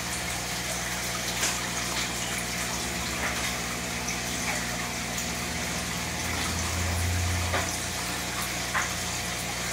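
Aquarium water circulation: an air-stone bubble wall and pump running, giving steady splashing and bubbling water over a low electrical hum. The hum swells for about a second about two-thirds of the way in.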